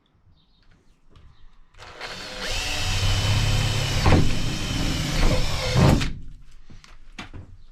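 Power drill running for about four seconds as it bores a pilot hole through a van's sheet-metal sliding door, then cutting off suddenly; a few light clicks follow.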